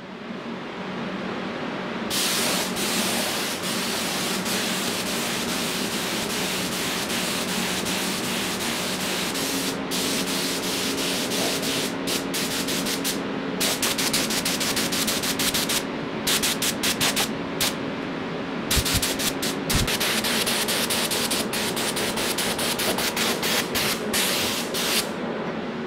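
Compressed-air spray gun spraying paint onto a motorcycle fuel tank, its hiss starting and stopping again and again as the trigger is pulled and released, over a steady low hum.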